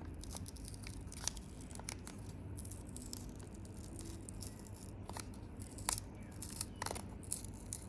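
Paper Pokémon trading-card pack being torn open slowly, close up: faint crackling and tearing of paper, with a few sharper crisp ticks.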